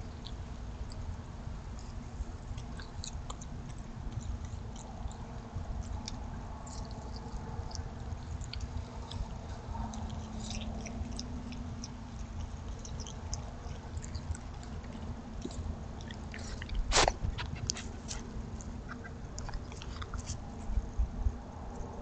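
Raccoon eating food from dishes on the ground: scattered small crunches and clicks over a steady low hum, with one sharper, louder click about 17 seconds in.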